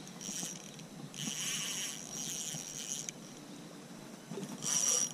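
Small spinning reel (Marine Sports Tiga 600) whirring in three bursts, the middle one about two seconds long, while a hooked tilapia is fought on an ultralight rod.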